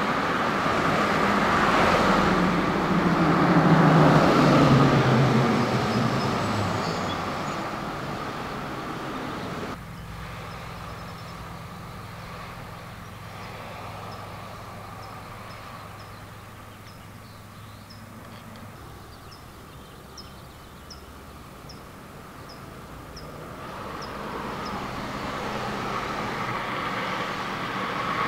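Freeway traffic. A heavy vehicle passes close in the first seconds, its engine pitch falling as it goes by. After an abrupt cut about ten seconds in, a quieter, distant traffic hum carries short high chirps about once a second, and the traffic noise swells again near the end.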